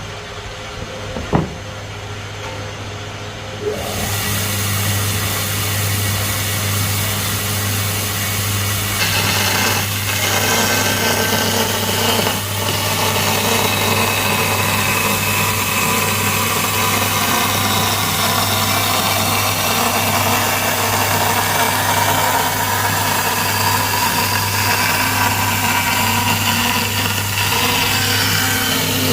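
An electric power tool running steadily with a low motor hum, with a sharp click about a second in. The sound grows louder about four seconds in and brighter again about nine seconds in, then holds steady.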